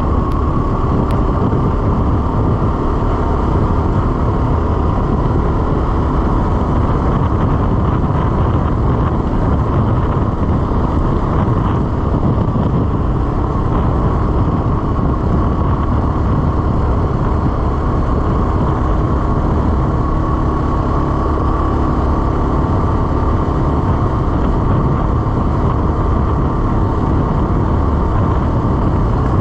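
CFMoto CForce 600 ATV's single-cylinder engine and drivetrain running steadily under way on a gravel track, a deep rumble with a thin steady whine above it.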